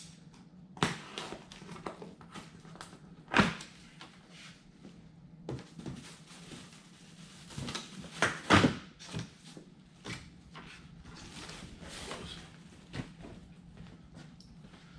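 A heavily taped cardboard shipping box being cut open and handled: scattered knocks, scrapes and rustles, with the loudest thuds about three and a half and eight and a half seconds in, over a faint steady hum.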